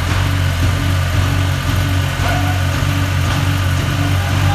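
A construction machine's engine running steadily at an even, low pitch.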